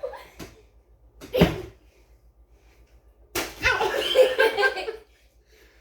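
A water bottle swinging on a cord from a spinning ceiling fan smacks into something once, about a second and a half in. A burst of laughter follows a couple of seconds later.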